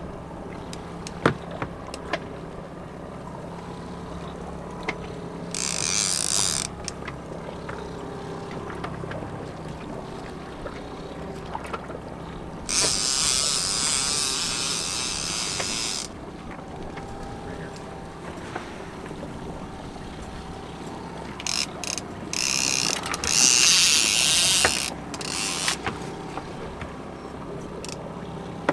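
Trolling reel on a rod fighting a king salmon: the reel's mechanism ticks and clicks as it is cranked, and the drag buzzes out line in three bursts, one short and two of about three seconds, as the fish runs. A steady low hum from the boat's engine runs underneath.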